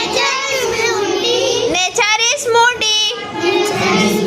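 A child singing, high-pitched, with a longer held note near the end.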